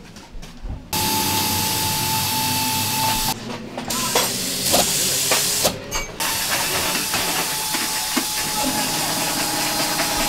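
Loud, steady hissing with a thin steady whine in it, starting suddenly about a second in and breaking off briefly twice.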